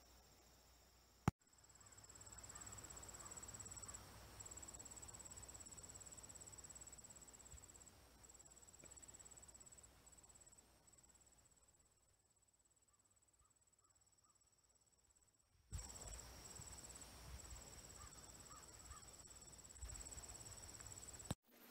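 Faint insects trilling steadily in a high, fast-pulsing chorus over a low rumble, with a sharp click about a second in.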